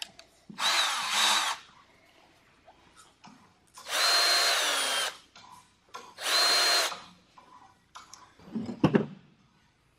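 Cordless drill with a countersink bit, run in three short bursts of about a second each to countersink the end of a small tube. Each burst is a high whine that winds down as the trigger is released, and a short voice-like sound follows near the end.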